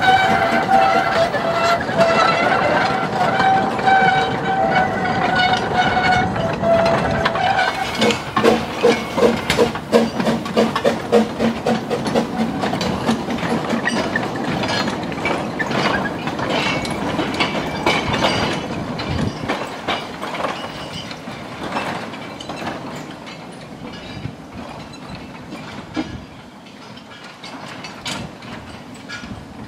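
Quarry Hunslet 0-4-0 tank steam locomotive sounding its whistle for about eight seconds, then its exhaust beating about twice a second as it pulls a train of small quarry wagons away, with wheels clicking on the rail joints. The sound fades as the train moves off.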